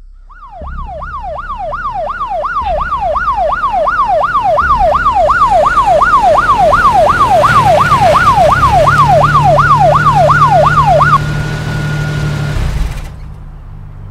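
Police car siren in yelp mode, sweeping rapidly up and down about three times a second, growing louder over the first few seconds. About eleven seconds in the yelp cuts off, leaving a short held tone and a low hum that stop about a second later.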